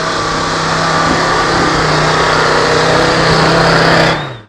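Modified off-road 4x4's engine running hard at steady high revs under load as the vehicle climbs a steep dirt slope, loud and close. It cuts off abruptly near the end.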